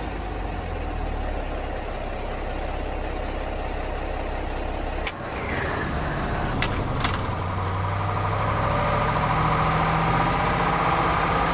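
A vehicle engine running steadily. About five seconds in the sound cuts abruptly to a different engine note, two sharp clicks follow shortly after, and then a steadier, higher hum continues.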